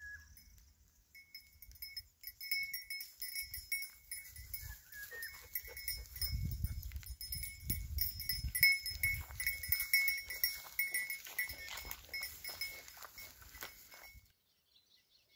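A bell on a goat's collar clinking irregularly as the goats walk out through the grass, with rustling footsteps in the vegetation; the clinking stops abruptly near the end.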